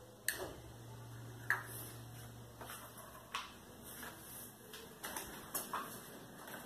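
Old Loren Sid four-blade ceiling fan starting up from a standstill: a low motor hum through the first half, fading about three seconds in, with irregular sharp ticks and clicks from the fan as it spins up.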